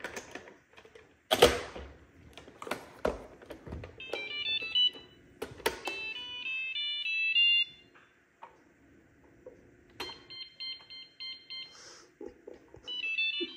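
Plastic housing of an iRobot Braava jet robot mop clicking and knocking as it is snapped together, then the robot's electronic chime: a stepped melody of beeps after about four seconds, and another beeping tone pattern about ten seconds in and again near the end. The robot is still not working: the fault has not been fixed.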